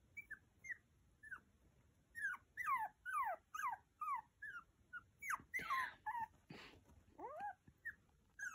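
Maltese puppy whimpering at night: a string of short, high whines that fall in pitch, sparse at first and then several a second from about two seconds in, with two short breathy sounds near the middle. The owner takes the crying as the puppy wanting to sleep on her bed.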